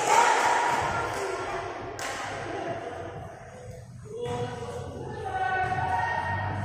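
Noisy voices and hall sound at first, a single sharp smack about two seconds in, then music with singing in held notes from about four seconds.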